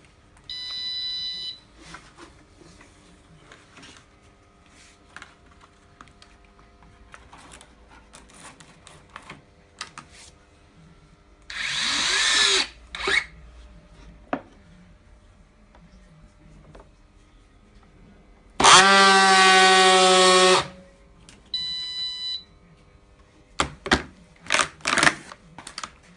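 Battery-powered handheld pallet strapping tool working polyester strap: a short electronic beep, then its motor runs twice, first a brief whir rising in pitch as it tensions the strap, then a louder steady two-second buzz as it seals it. A second beep follows, and a few sharp clicks near the end.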